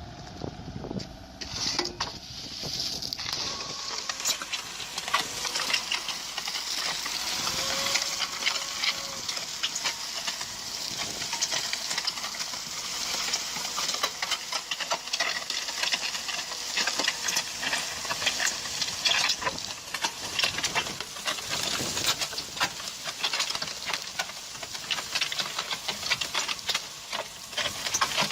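Machinery working with a dense, rapid clatter of clicks over a steady hiss.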